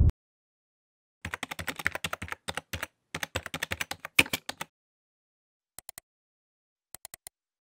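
A quick run of light clicks, several a second, for about three seconds starting just over a second in, then two short groups of clicks near the end, with dead silence between.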